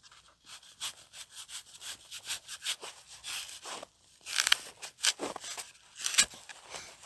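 Sleeping gear being handled: fabric rustling and rubbing in a run of quick strokes, with the loudest rustles about four and a half and six seconds in.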